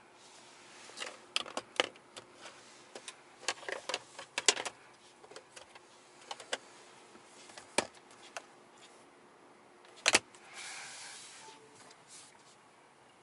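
Light clicks and taps of a phone being handled and set down in a car's centre console, in a quiet cabin. There is a sharper click near the eight-second mark and a loud double click about ten seconds in, followed by a brief hiss.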